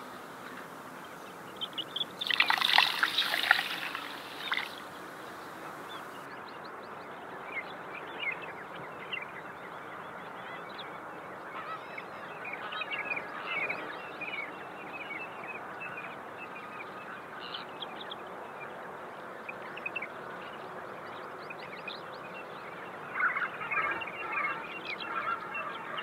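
Outdoor farm ambience with birds calling: a loud flurry of calls about two seconds in, scattered short chirps throughout, and another flurry near the end.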